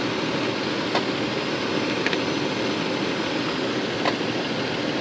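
A warm car engine running under the open hood together with its radiator cooling fan, a steady rushing noise, with a few light clicks about one, two and four seconds in.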